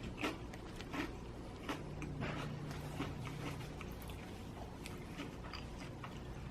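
Chewing and crunching on crispy pizza close to the microphone: a run of short, irregular crunches, one every half second to a second.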